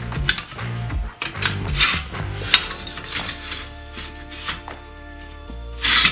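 Loose steel channel and angle pieces clinking, knocking and scraping against the steel frame of a homemade screw pipe bender as they are fitted by hand. A short loud hiss comes near the end.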